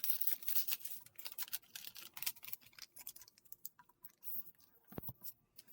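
Sheet of paper being handled and folded: quick, irregular crisp rustles and crackles as creases are pressed, thinning out in the second half, with a single duller thump about five seconds in.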